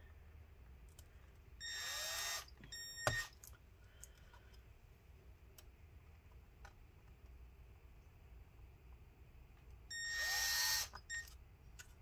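Small drill with a tiny bit whirring in two short bursts of about a second each, one near the start and one near the end, each spinning up as it starts, drilling out the plastic rivets that hold a laptop keyboard in place. A sharp click follows the first burst.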